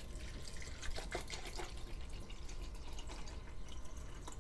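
Water pouring in a thin stream into a plastic Magic Bullet blender cup over mint leaves: a steady trickle with small splashes.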